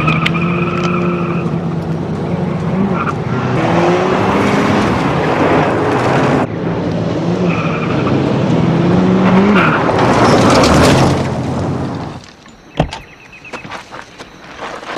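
Car engine running hard, its pitch rising and falling, with tyres skidding on dirt. About twelve seconds in the engine sound drops away, leaving a few sharp knocks.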